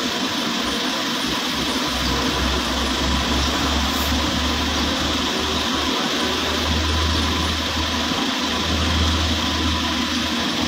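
Isuzu Traga truck engine idling steadily, with a low rumble that swells and drops a few times.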